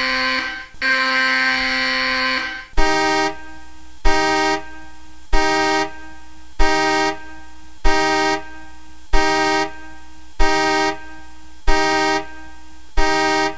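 A PC alarm clock program's alarm sound playing through the computer speakers: two long held tones, then a repeating pattern of a sharp hit and a shorter tone about every 1.25 seconds. The alarm is going off at its set wake-up time.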